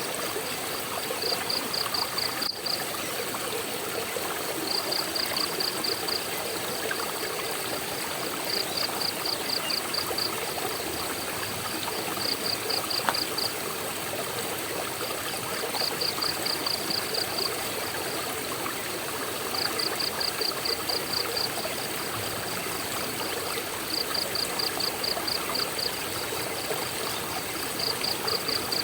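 Waterfall and stream water rushing steadily. Over it, a small animal's high, rapid trill of about a second recurs every three to four seconds.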